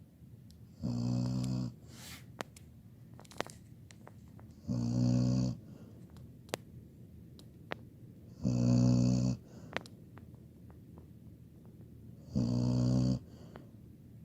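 A 17-year-old labradoodle snoring in her sleep: four loud snores, each just under a second long, about one every four seconds, with faint clicks in between.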